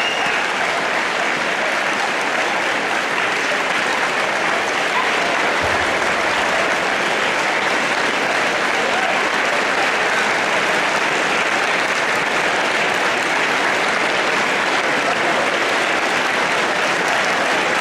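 A large crowd applauding: sustained, steady clapping that neither builds nor fades.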